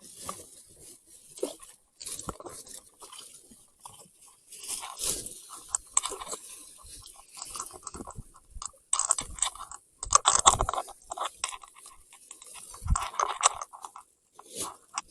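Irregular crunching and rustling with short scrapes and knocks, coming in clusters. The loudest stretches are about five, ten and thirteen seconds in.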